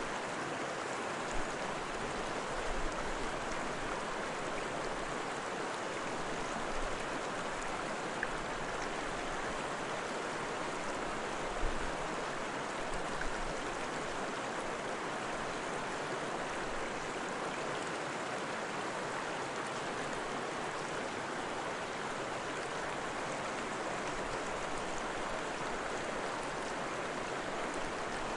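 Steady rushing of flowing water, like a stream, with a few faint low knocks.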